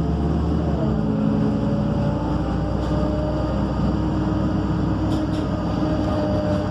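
MAN Lion's City A37 city bus heard from inside the cabin: the diesel engine and driveline run steadily with a low hum and several whining tones that drift slightly in pitch. A few faint clicks or rattles come near the end.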